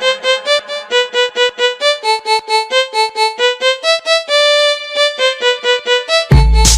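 Brazilian funk track in an instrumental break: a high melody of short, quick notes with no bass or beat, until heavy bass and drums come back near the end.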